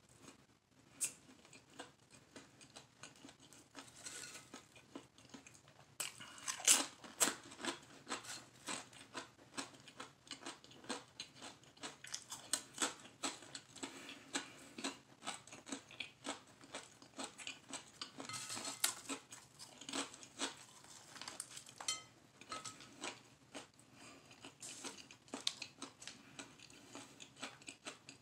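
A person eating a veggie sub sandwich: close-up chewing with a dense, irregular run of small sharp mouth clicks, and the soft bread pulled apart by hand now and then. It is loudest around seven seconds in and again near nineteen seconds.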